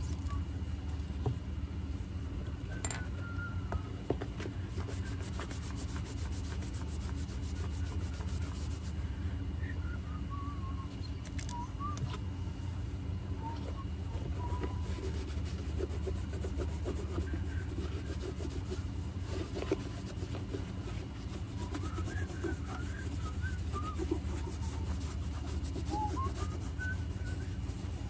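Hand rubbing and brushing on a leather shoe, a continuous scratchy texture of short strokes with a few light clicks, over a steady low hum.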